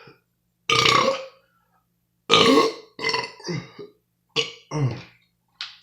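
A man burping several times in a row, short separate burps about a second apart. The burps break his no-burping challenge.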